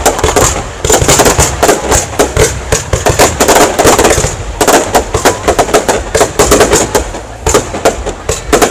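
Display fireworks going off in quick succession: a near-continuous run of bangs and crackles from shells being launched and bursting.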